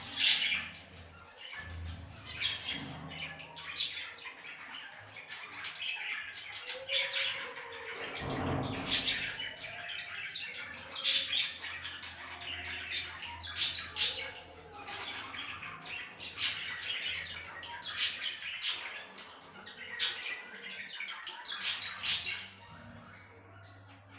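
Budgerigars chattering and warbling continuously, broken by frequent sharp chirps and squawks.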